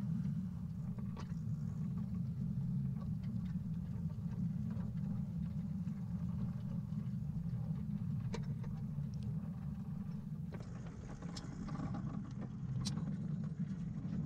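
Steel wheels of a 7¼-inch gauge coach bogie running along the track: a steady low rumble with occasional sharp clicks. About ten seconds in it turns brighter, with more frequent clicks.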